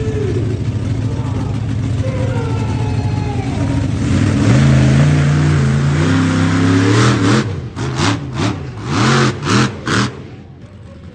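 Monster truck engine revving hard: it climbs in pitch and then is blipped about five times in quick short bursts before dropping back.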